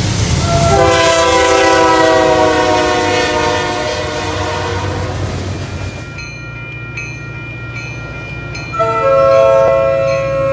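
A passing Pan Am Railways freight locomotive blows a long horn chord over the rumble and clatter of its train, the pitch sliding down as it goes by. After an abrupt change, a crossing signal bell rings faintly over the low diesel rumble of an approaching MBTA F40 locomotive, which starts sounding its horn about nine seconds in.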